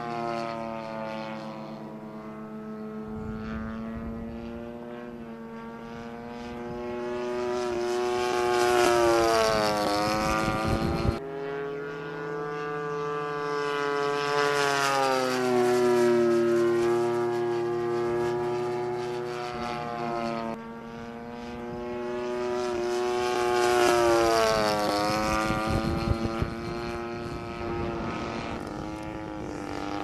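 DLE 30cc single-cylinder two-stroke petrol engine of a radio-controlled Focke-Wulf Fw 190A model plane in flight. Its note swells and drops in pitch as the plane passes, about three times.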